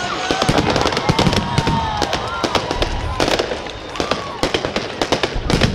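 Fireworks display going off: a dense, rapid run of crackling bangs and pops, easing briefly about four seconds in before picking up again.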